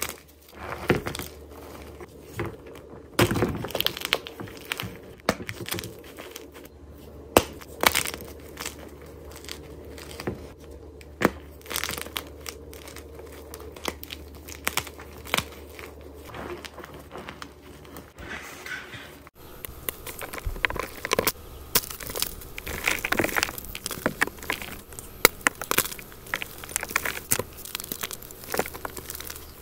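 Blocks of gym chalk crushed and crumbled by hand, a run of dry crunches and sharp crackles as the pieces break. About two-thirds of the way through the sound changes: chalk mixed with cornstarch paste is now being squeezed and crumbled in a metal bowl.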